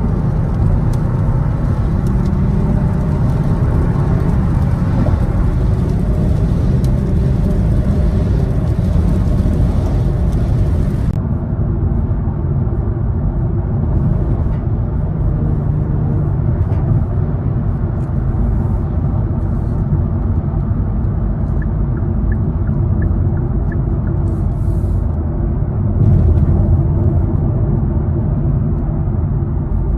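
Kia Stinger GT's twin-turbo V6 running with new aftermarket ARK downpipes: a steady, loud, low exhaust drone.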